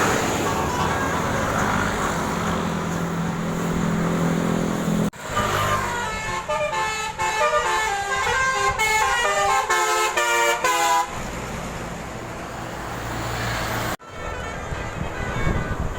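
Indonesian telolet bus horns (Basuri type) on passing tour buses. After a cut about five seconds in, a fast tune of rapidly changing horn notes plays for about five seconds. Before and after it are steadier horn tones and bus engine and road noise, with a second abrupt cut near the end.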